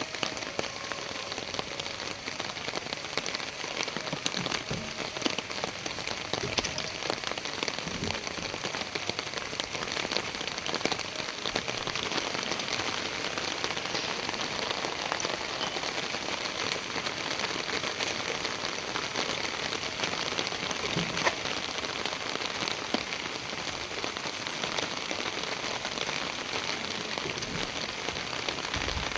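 Steady rain falling, an even hiss dotted with many small drop hits and now and then a sharper tick.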